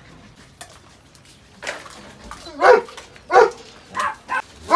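A dog barking: a quiet start, then a run of short, loud barks about every half second from about a second and a half in.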